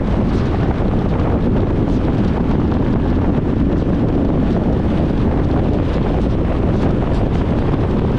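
Steady low rumble of a car driving along, as heard from inside the cabin: road and tyre noise with engine drone, unchanging.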